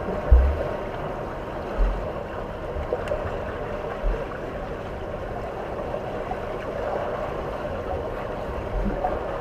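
Steady rushing, water-like noise, with a few irregular dull low thumps, the strongest just after the start.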